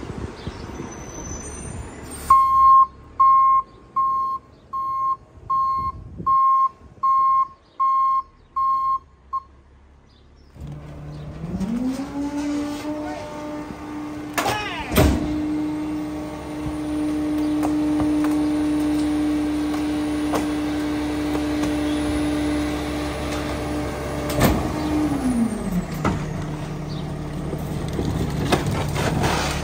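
A CCC Pak Mor rear-loader garbage truck's back-up alarm beeps about once a second, around eight times, as the truck reverses. The engine then revs up and holds at high speed while the hydraulic packer cycles, with a sharp knock as the cycle starts and another as it ends. Near the end the engine drops back to idle.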